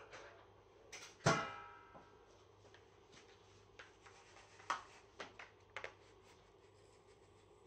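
Kitchen clatter around a glass mixing bowl: one sharp clink about a second in that rings briefly, followed by a few lighter clicks and taps.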